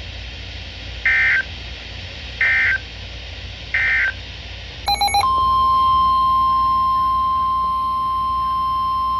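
NOAA Weather Radio EAS data signal: three short warbling digital bursts, about a second and a half apart, the SAME end-of-message code. About five seconds in, a brief blip gives way to the steady 1050 Hz Weather Radio warning alert tone, which holds on.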